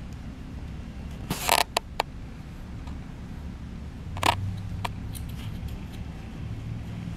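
Small grooming scissors snipping the hair around a Yorkie puppy's eyes: a quick cluster of snips about a second and a half in, then two more single snips a little past the middle.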